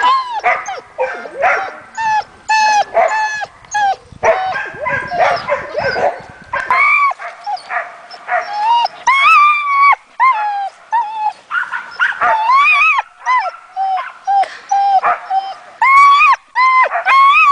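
Nova Scotia duck tolling retriever giving a rapid string of high-pitched, rising-and-falling yelps and whines, over and over: the excited 'toller scream' of a worked-up dog eager to go.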